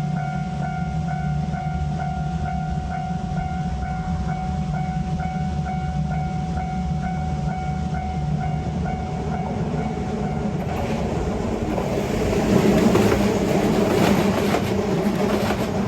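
Japanese level-crossing alarm ringing in an even, rapid beat over a steady low rumble. About ten seconds in, the alarm cuts off and a train passes, wheels clattering over the rail joints, loudest near the end.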